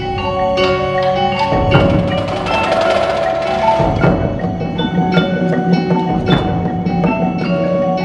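Winter drumline percussion ensemble playing: sustained ringing mallet-keyboard and chime notes over repeated sharp percussion hits, with a bright shimmering swell a couple of seconds in.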